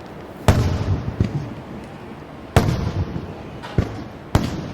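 Aerial fireworks bursting: several distant booms about a second apart, the loudest trailing a low rumble, over a steady crackling background.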